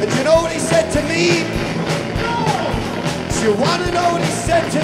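A rock band playing live with electric guitar and drums: a fast, driving drum beat of about four strokes a second under a lead line that slides up and down in pitch.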